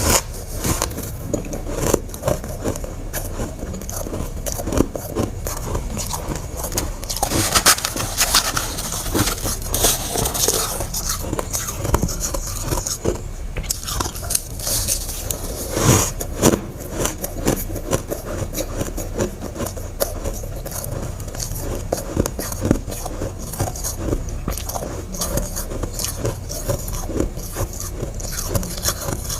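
Freezer frost being bitten and chewed close to the microphone: a dense, irregular run of crunching and scraping crackles, with louder bites now and then.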